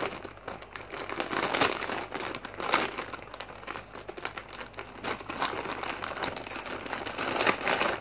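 Thin plastic packaging pouch crinkling and rustling as hands work it open, in irregular bursts that are loudest near the end.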